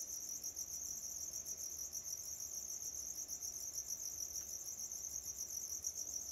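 Crickets chirping in a continuous high-pitched trill.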